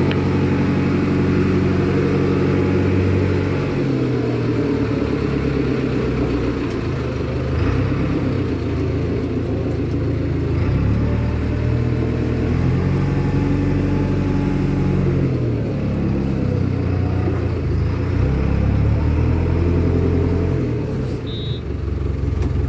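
Backhoe loader's diesel engine running, heard from inside the cab, its speed rising and falling several times.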